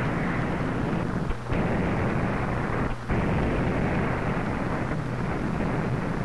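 Steady, loud rumbling roar of noise, broken by two brief drop-outs about a second and a half in and about three seconds in.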